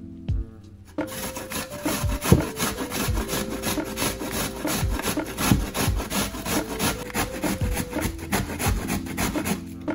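Half a red cabbage being grated on a stainless steel box grater: quick, repeated rasping strokes against the metal blades, starting about a second in.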